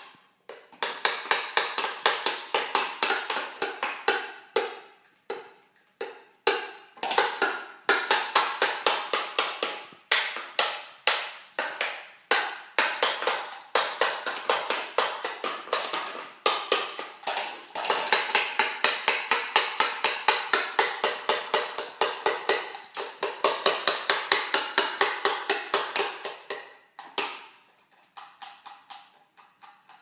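Cockatoo pecking rapidly with its beak against a hard surface, woodpecker-style: runs of sharp taps at about five a second, broken by a few short pauses and fading near the end.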